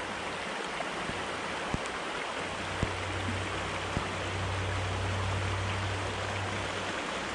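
Shallow mountain stream running over rocks: a steady wash of water. A low rumble joins in about two and a half seconds in and fades near the end, with a few faint clicks.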